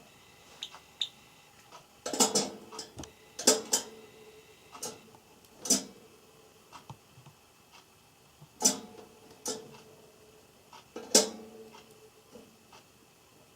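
A Java sparrow on its wire cage door, making the door clink and rattle as it hops and pulls at pea sprouts. There are about five sharp metallic clinks that ring briefly, among lighter ticks.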